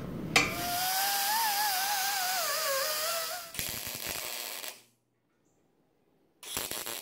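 A power sander whines over a hiss for about three seconds on the steel bumper, its pitch wavering under load. A MIG welder then crackles briefly as a bolt is tack-welded to the inside of the bumper, and another short crackle comes in near the end.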